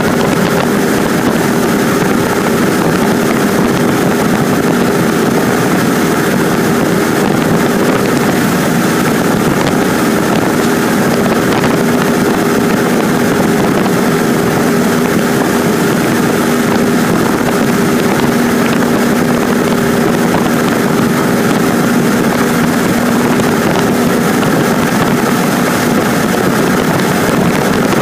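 Cessna 150 in cruise, heard from inside the cabin: its four-cylinder Continental O-200 engine and propeller drone steadily and loudly.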